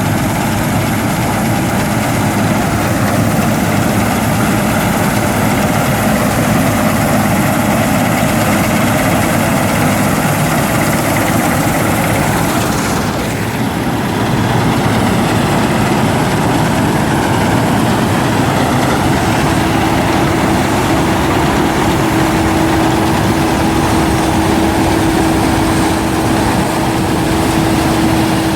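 Claas Mercator combine harvester running steadily while harvesting wheat, its engine and threshing machinery making a constant heavy drone. A steady higher tone joins in about two-thirds of the way through.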